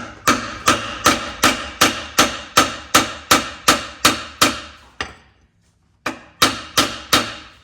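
Hammer blows on a metal exhaust pipe, about two and a half strikes a second, each ringing: about a dozen in a row, a brief pause, then four more, as the pipe is beaten to bend it.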